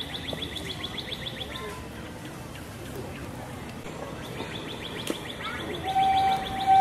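A small songbird singing rapid trills of chirps: one trill runs out about two seconds in and another starts about four seconds in. Near the end a loud steady tone comes in and becomes the loudest sound.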